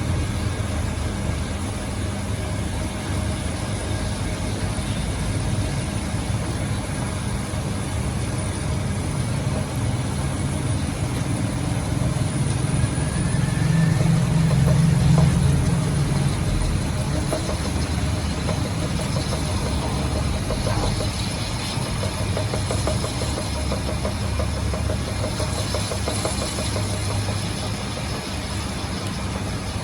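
Steady low mechanical hum of a running motor, swelling louder for a couple of seconds about halfway through.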